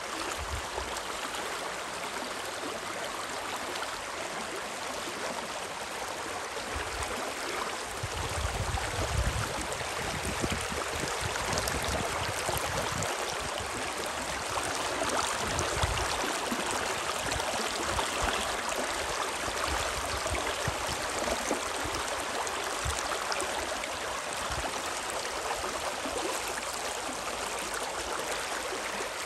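The Spree river's running water rushing and gurgling in a steady wash, with a few brief low rumbles about a third of the way in and again near the middle.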